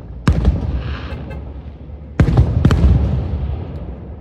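Aerial fireworks shells bursting with loud booms, each followed by a long low rumbling echo: one about a third of a second in, then two more close together a little past two seconds in.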